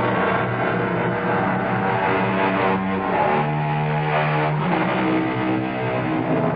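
Instrumental bridge music marking an act break in a radio drama, with sustained held notes and a steady low tone.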